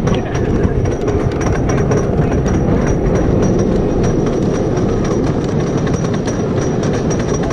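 Wooden roller coaster train climbing its lift hill: a steady low rumble with rapid clacking from the chain lift and anti-rollback ratchet.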